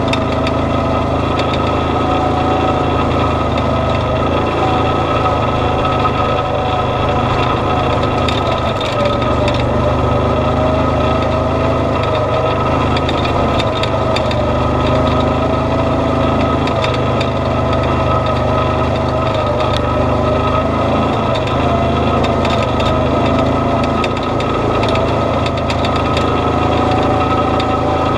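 Engine of an off-road vehicle running at low, steady speed on a rough dirt trail, its pitch wavering gently up and down with the throttle, with a steady high whine over it and faint rattles from the bumpy ground.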